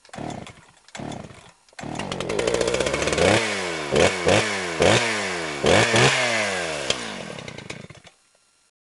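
Chainsaw engine: two short sputters, then it catches and runs. It is revved about six times, its pitch falling after each rev, and dies away near the end.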